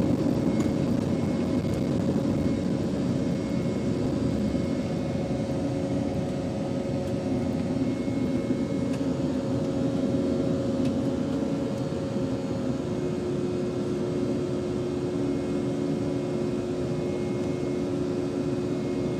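Steady jet airliner noise from an Embraer E190's turbofan engines climbing after takeoff, heard as a dense rushing hum with a steady tone. About two-thirds of the way through, the tone steps down to a lower pitch.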